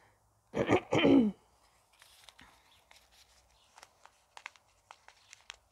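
A woman's brief murmured voice about half a second in, followed by faint scattered ticks and light rustles of hands handling a paper seed packet.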